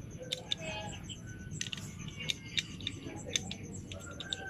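Irregular small sharp clicks and light scrapes of a 9mm pistol magazine and its spring being handled and fitted together by hand.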